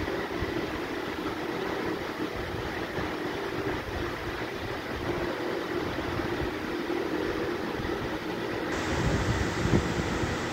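Steady mechanical hum and rumble, like a running fan or machine, with a few soft low knocks near the end.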